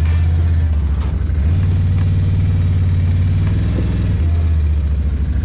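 Can-Am ATV engine running at low speed while the quad turns around. Its low note steps up and down twice as the throttle changes.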